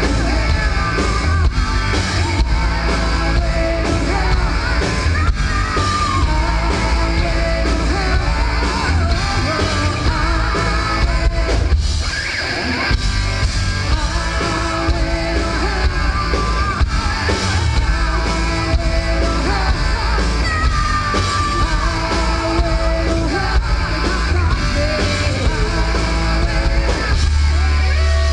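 Live rock band playing: a singer singing over electric guitars and drums.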